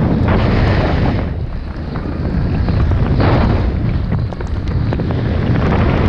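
Wind buffeting the microphone of a snowboarder's first-person camera, a steady low rumble, with surges of scraping from the snowboard sliding and turning on the snow near the start, about three seconds in, and again at the end.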